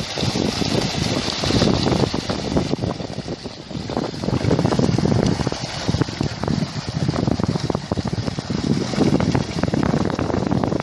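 Water splashing and churning as a school of piranhas thrash at the surface in a feeding frenzy on meat, a dense run of small splashes, with wind rumbling on the microphone.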